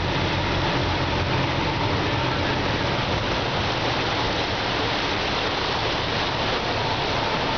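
Bus wading through street floodwater: a steady rush of water churned up and splashing along the bus, with its engine running low underneath.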